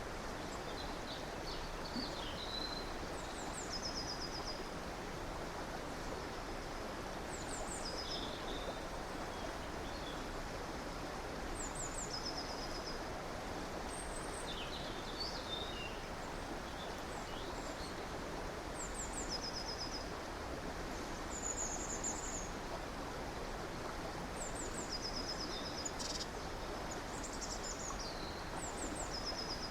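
Steady rushing of a river or stream, with small birds calling over it: short, high, rapid chirping trills that recur every few seconds, and a few lower whistled notes.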